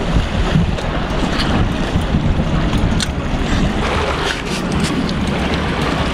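Wind buffeting the microphone over sea waves washing against a rock jetty, with a few light clicks.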